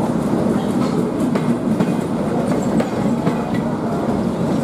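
Passenger train coaches rolling past: a steady rumble from the wheels on the rails, with wheel clicks over the rail joints.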